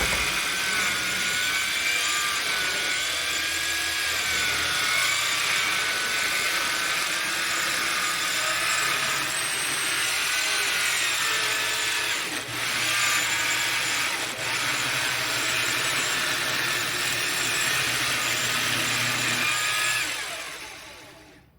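Circular saw ripping a copper-treated 2x4 lengthwise, running steadily under load with a wavering whine. It dips briefly twice, about two seconds apart, and winds down over the last second or so as the trigger is released.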